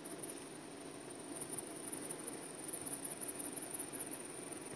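Cricket chirping in fast, very high-pitched pulses, several a second, falling silent for about a second near the start and then carrying on. Under it is a soft low hum of bees in the hives.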